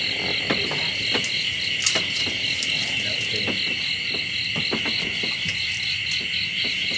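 Dense chorus of night insects: a steady shrill drone with a fast-pulsing chirp above it. A few light clicks and knocks come through it, the sharpest about two seconds in.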